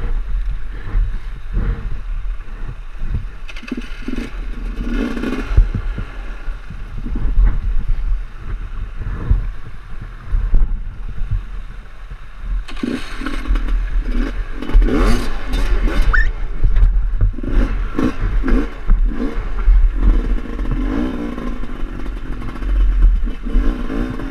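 GasGas enduro motorcycle's engine revving in bursts while the bike is heaved over wet creek-bed rocks, with scraping and clattering knocks of the bike on stone. The revving is busiest in the second half.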